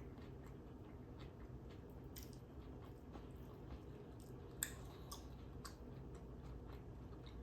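Faint, close-miked chewing of a California roll: soft wet mouth clicks, with one sharper click a little past halfway.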